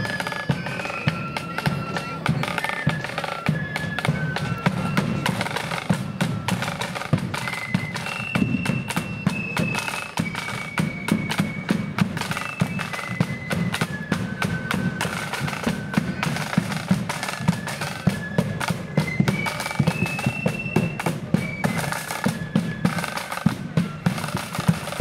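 Marching flute band playing a tune: a high-pitched flute melody over rapid side-drum beating and a low drum beat.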